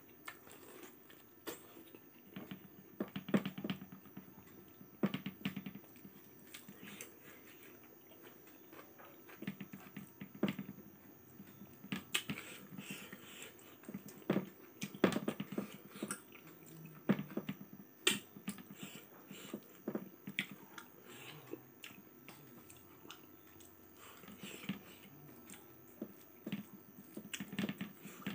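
A man chewing a mouthful of rice and pork, with wet mouth and lip sounds coming in irregular spells of a second or two. Small clicks and squelches come from fingers working the rice on the plate.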